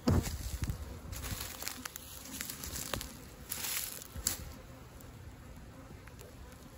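Honeybees buzzing around mating nuc boxes, a faint hum. Footsteps rustle through the grass, with a soft knock at the start and a few light clicks.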